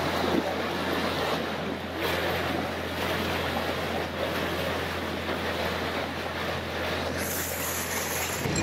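Small motorboat under way: a steady rush of water and spray along the hull over a low, steady engine hum, with wind on the microphone.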